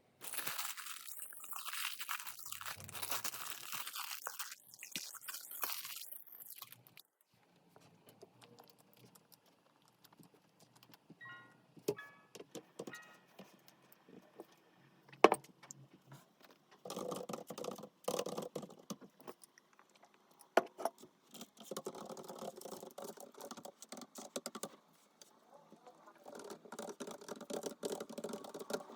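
Kitchen handling sounds: a hiss for the first several seconds, then clinks of tableware with short ringing notes, a sharp click, and rattling clatter.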